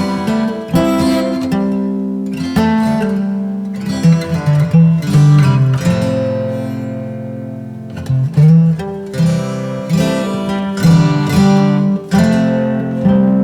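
Background music: a light instrumental led by plucked acoustic guitar, with notes picked and strummed over a steady bass line.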